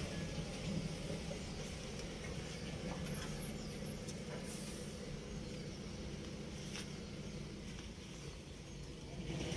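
A diesel engine running steadily at idle: an even, low drone with no change in speed.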